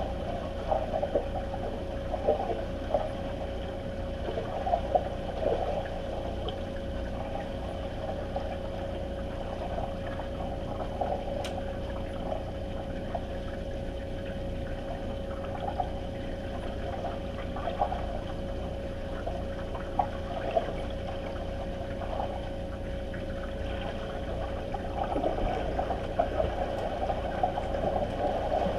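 Swimming-pool ambience heard underwater: a steady hum with one constant tone under a low rumble, with irregular crackles and bubbly splashes from swimmers at the surface. The splashing is busier in the first few seconds and swells again near the end.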